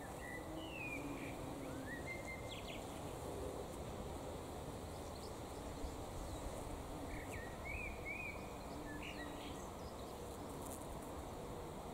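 Bees buzzing faintly among lavender flowers over a steady rush of wind. A bird sings two short phrases of quick whistles, near the start and about seven seconds in.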